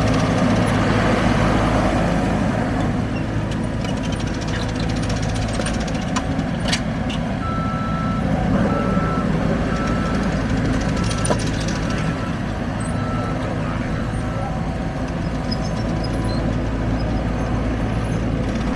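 ASV RC100 tracked skid steer loader's diesel engine running steadily. Near the middle its reversing alarm beeps about eight times as the machine backs up.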